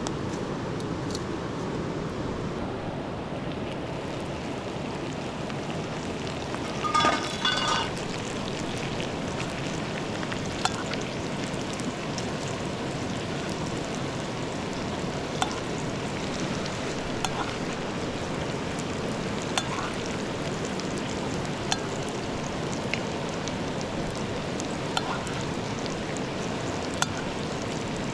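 Chicken sizzling in a pan over a campfire, a steady hiss with sharp pops every couple of seconds. A brief metallic clatter of a utensil on the pan about seven seconds in.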